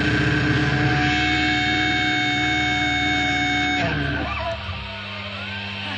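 Brutal death metal track with distorted guitars, ending about four seconds in with a few held tones that cut off. A steady electrical hum remains afterwards.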